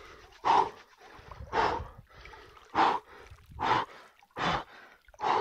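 A man breathing hard in short, forceful gasps, about one a second, six in all: cold-shock breathing while standing in icy lake water.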